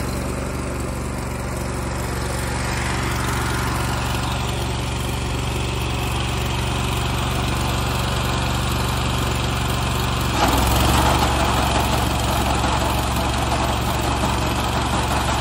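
Small engine driving a grain auger, running steadily. About ten seconds in its note changes and it gets louder and rougher.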